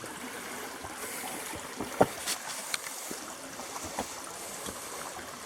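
Shallow canyon stream trickling steadily over rocks, with a few short knocks, clustered about two seconds in and again near four seconds.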